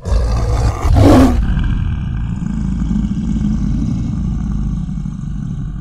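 Cinematic logo-reveal sound effect for a fireball explosion: a loud whoosh that breaks into a boom about a second in, then a deep rumbling roar that slowly dies away.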